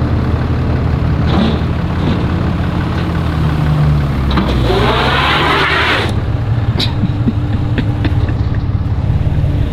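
A 1967 Chevy Nova's carbureted engine running and pulling the car up the ramps onto a car trailer, revved once about four seconds in, the pitch rising and then falling back.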